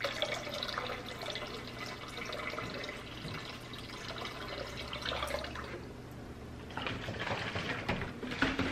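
Water pouring from a plastic gallon jug into a partly filled fish tank, the stream splashing into the tank water, with a short lull partway through.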